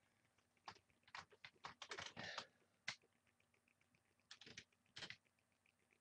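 Near silence with faint, scattered clicks and brief rustles, irregular and bunched about a second in and again around five seconds in.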